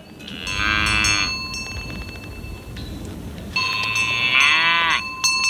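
Vosgienne cows mooing twice, each a long call that rises and falls in pitch, with cowbells ringing steadily behind.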